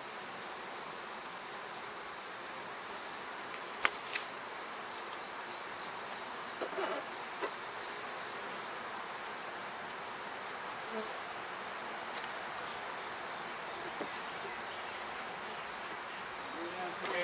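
Steady, high-pitched chorus of insects, with a couple of faint knocks as wooden hive boxes are handled.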